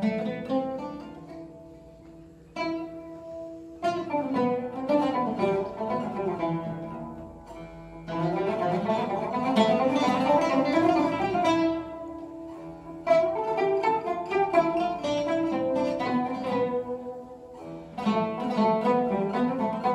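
Oud and tanbur playing a Turkish classical instrumental piece together, plucked melodic phrases that ease off briefly and start again every few seconds.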